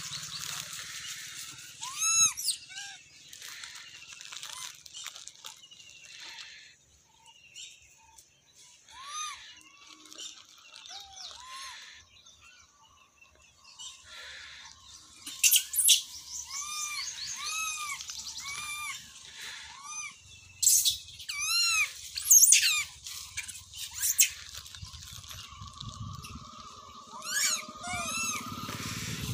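Spells of high, arching animal calls, each a short rise-and-fall note, sometimes repeated about once a second, with a few sharp screechy squeals among them in the middle stretch. A low rumble builds near the end.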